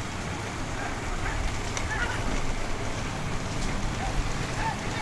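Steady low rumbling noise, with faint distant voices calling now and then.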